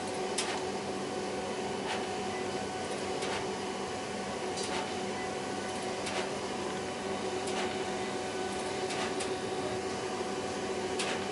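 HP Designjet 5000ps 42-inch large-format inkjet printer printing: a steady mechanical hum with a sharp click about every one and a half seconds.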